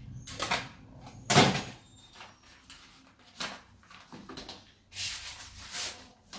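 Household objects being handled and sorted: a few sharp knocks and clatters, the loudest about a second and a half in, then a stretch of rustling near the end.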